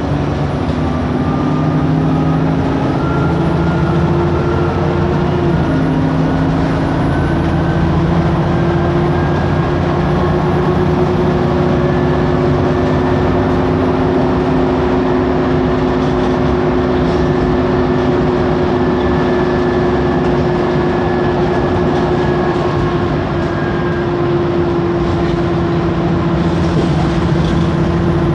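Diesel bus running, its cooling fans giving a steady drone with held tones and its turbocharger adding a whine. A faint high whine slides down and fades about halfway through.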